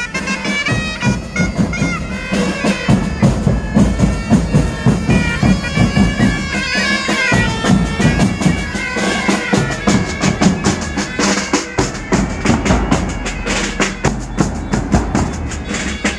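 Pipe band playing: bagpipes sounding a melody over their steady drone, with drums beating time.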